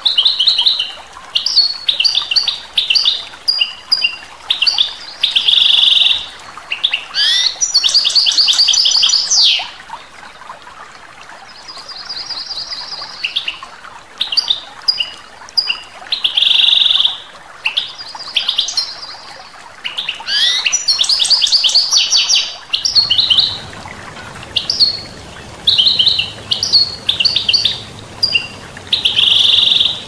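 European goldfinch singing: a run of short, high twittering phrases and buzzy notes, twice breaking into a longer rapid rattling trill, over the steady rush of a stream. About three quarters of the way through, the water grows fuller and deeper.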